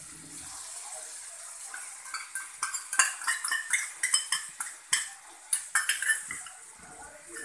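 Metal spatula scraping and clinking against a metal pan as chicken pieces are stirred, over a faint sizzle of frying. The clinks come thick and fast from about two seconds in.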